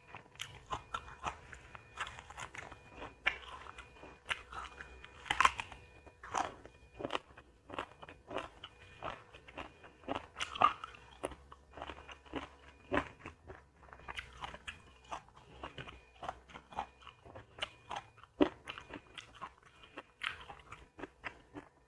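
A person biting and chewing crunchy food, a quick irregular run of crisp crunches with a few louder bites among them.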